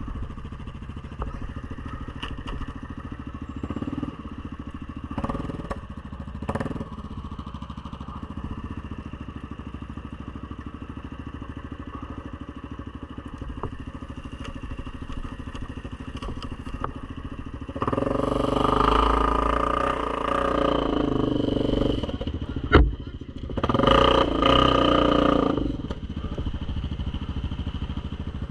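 ATV engine running at low revs, revved hard twice near the end, each burst lasting a few seconds, with a single sharp knock between the two.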